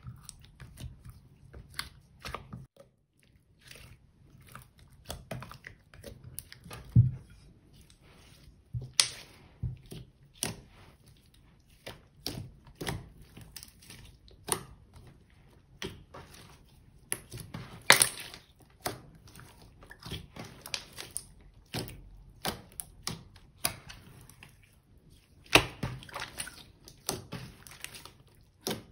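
Hands squishing, stretching and folding glossy slime: a run of irregular wet clicks and pops, with a few much louder pops where air pockets burst.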